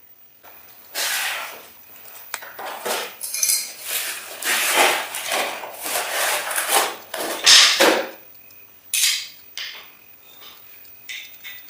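Objects being handled and clattering: a run of irregular scraping and clinking bursts lasting about seven seconds, then a few lighter knocks.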